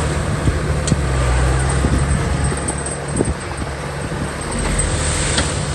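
Heavy machinery's diesel engine running steadily, with a few short knocks.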